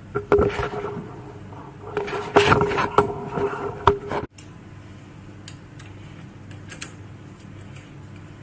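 Knocks, clatter and scraping as an electric scooter's rear wheel and frame are handled, loudest in a cluster between about two and four seconds in. After a sudden cut, a few faint clicks come over a low steady hum.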